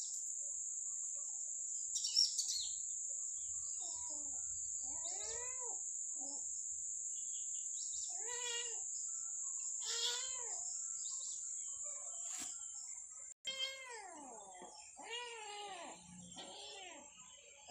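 Kittens mewing in high calls that rise and fall: a few scattered mews at first, then a quicker run of them in the last few seconds. A steady high hiss runs behind them and cuts off suddenly about 13 seconds in.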